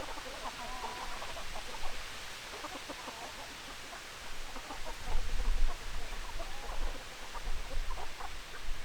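A flock of chickens clucking, many short overlapping calls throughout. A low rumble comes in about five seconds in and again near the end.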